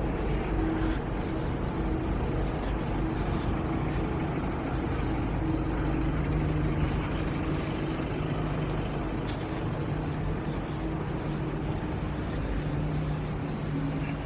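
Steady city street traffic, with a nearby vehicle engine running in a continuous low hum.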